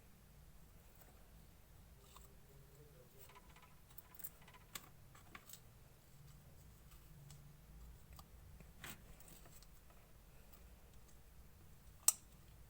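Clear slime being handled and mixed: faint, scattered sticky clicks and pops, a few together about four to five seconds in and one sharper, louder click near the end.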